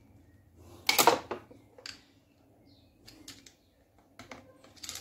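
Screwdriver tips prying and scraping against a steel Seeger circlip on a shaft of a Gilera 200 engine: a loud cluster of metallic clicks and scraping about a second in, then a few small scattered clicks. The clip is being levered open with screwdrivers rather than circlip pliers.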